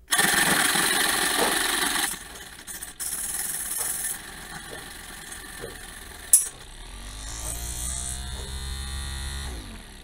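Small DC motor switched on by connecting it to a battery, spinning a metal disc with a loud, noisy whir. There is a sharp click about six seconds in. Near the end the running sound falls in pitch as a magnet brought close to the disc slows it by eddy-current braking.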